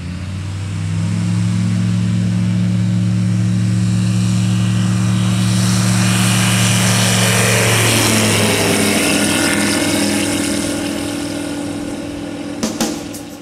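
Aeroprakt A22 microlight's engine and propeller at full power on a short takeoff run, growing louder as the aircraft approaches. About eight seconds in the pitch drops as it passes close by and climbs away, then the sound fades. A few sharp clicks come near the end.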